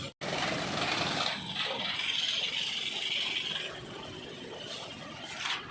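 Pressure washer running while washing a motorcycle, with a steady spray hiss for about two seconds in the middle.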